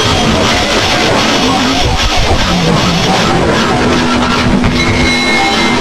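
Harsh noise music: a loud, dense wall of distorted sound, with a low held tone coming in about halfway through.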